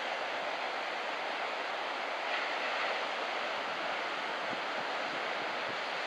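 Steady rush of ocean surf breaking on a beach, swelling a little a couple of seconds in, with some wind noise.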